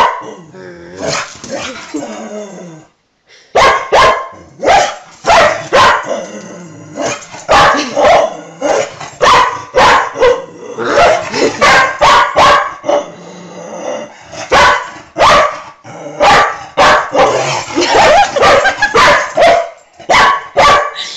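A dog barking over and over at its own reflection in a mirror: sharp loud barks about one or two a second, with a short lull about three seconds in.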